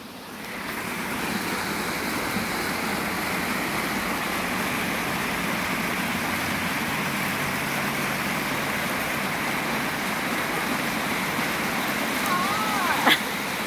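Water pouring down a stepped concrete cascade fountain, a steady rushing that swells up about half a second in and then holds even.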